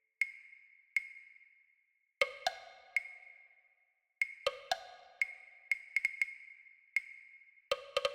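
Sparse music of short struck notes that ring and fade, a high note sounding about once a second, with lower notes joining in three times.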